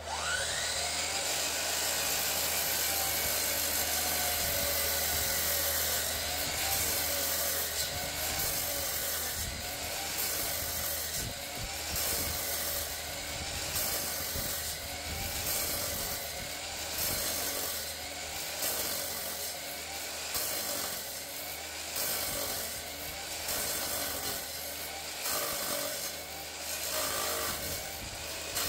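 DeWalt sliding miter saw with a Diablo blade comes up to speed right at the start, then cuts slowly through thick aluminium plate. The cut is a steady, harsh screech with a whine that wavers in pitch every couple of seconds as the blade is fed.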